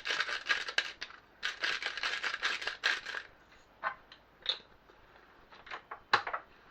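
Black pepper being ground from a hand pepper grinder: a dense, rapid crunching in two bursts, the second a little longer, followed by a few small clicks and knocks.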